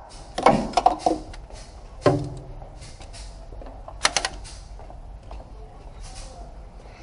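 Metal hand tool knocking and scraping against the rear main seal housing on a Mitsubishi 4B12 engine block as the seal is worked. A cluster of clanks comes about half a second in, and single sharp knocks with a short ring follow about two and four seconds in.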